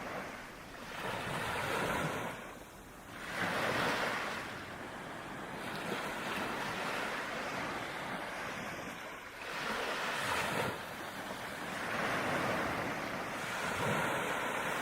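Sea waves breaking and washing back, the surf swelling and falling away in repeated surges every few seconds.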